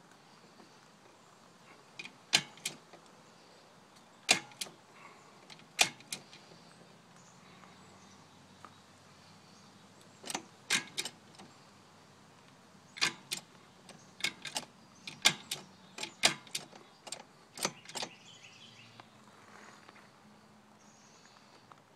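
Sharp metallic clicks and clacks, a dozen or more in small clusters with a pause in the middle, from the chain and shift linkage of a motorcycle go-kart's shifting set-up built from snowblower parts as they are moved.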